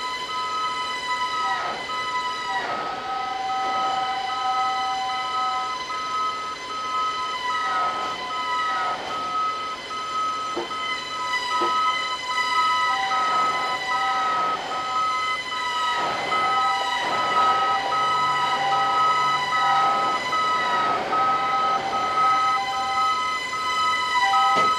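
A vehicle's reversing alarm beeping fast and evenly, about two beeps a second, over a continuous high whine from the heavy mobile crane as it moves on the low-loader trailer.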